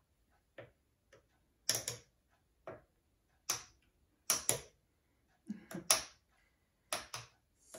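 Metal spoon clinking against a drinking glass while stirring green juice: a dozen or so sharp clinks at irregular intervals.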